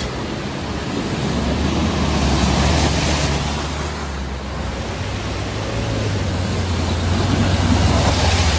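Rushing river water pouring over rocks, with the low, steady engine of a Mahindra Thar 4x4 driving through it. The engine and splashing grow louder near the end as the vehicle ploughs through the water close by.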